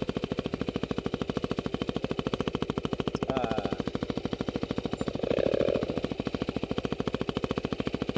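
Yamaha WR250F's 250 cc single-cylinder four-stroke engine running at low revs with an even, rapid beat as the dirt bike rides down a hill. A short louder patch comes about five seconds in.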